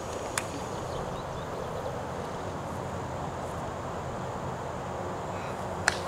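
Outdoor summer ambience: a steady high insect drone over soft background noise, with a single sharp click about half a second in and another just before the end.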